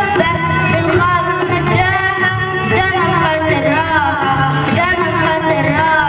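A song sung with instrumental accompaniment, the voices carrying a melody over the music throughout.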